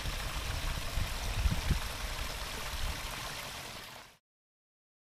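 Water spilling over a small drop in a rice-field irrigation channel, a steady rushing splash with a few low thumps beneath it. It fades out and cuts to silence about four seconds in.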